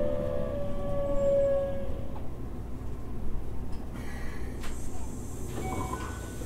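Keikyu 600 series electric train running, heard from inside a passenger car. A high motor whine falls slowly in pitch and dies away about two seconds in, leaving the low rumble of the running gear.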